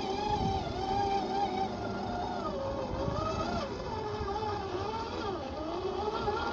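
Whine of a scale RC crawler's 50-turn electric motor and geared drivetrain, rising and falling in pitch with the throttle as it crawls over rocks. The pitch sags twice, around the middle and near the end, before climbing again.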